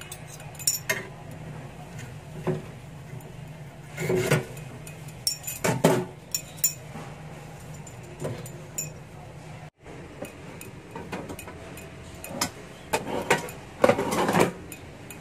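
Metal utensils clinking and knocking against an air fryer's wire rack and basket as a whole roast chicken is turned over, in scattered sharp taps. Near the end comes a busier run of knocks and scrapes as the basket is handled.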